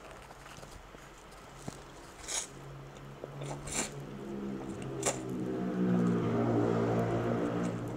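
Instant noodles slurped in a few short sucks, with chewing. From about a third of the way in, an engine hum grows louder and stays the loudest sound, like a motor vehicle coming close.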